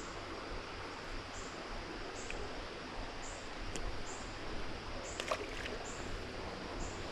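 Creek water running steadily, with a short high chirp repeating about once every second and a few faint clicks about five seconds in.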